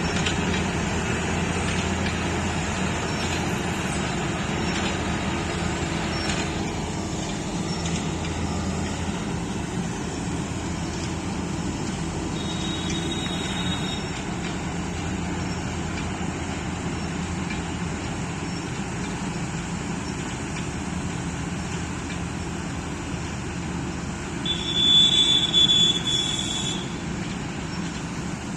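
Preet 987 combine harvester running steadily while cutting paddy, its engine and threshing machinery making a continuous drone. A short shrill high-pitched sound rises over it about 25 seconds in, the loudest moment, with a fainter one near the middle.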